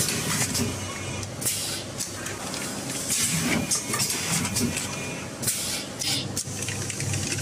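Vertical form fill seal packing machine running, a steady mechanical clatter and hum with a hissing burst every two seconds or so as it cycles.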